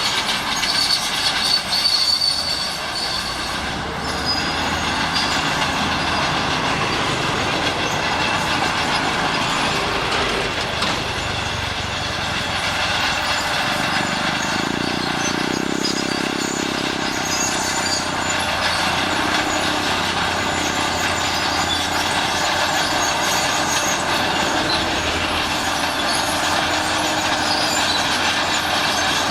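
Shantui SD16 crawler bulldozer at work: its diesel engine runs under load while the steel tracks give a continuous high-pitched squeal and grind.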